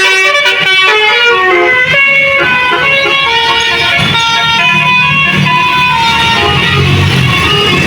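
Bus telolet basuri musical horn playing a tune: a run of loud, steady horn notes stepping up and down in pitch, some overlapping as chords. A bus engine's low rumble grows underneath from about four seconds in.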